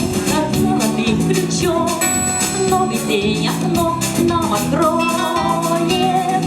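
Instrumental introduction of a pop song: sustained chords under a moving melody line, with a regular beat.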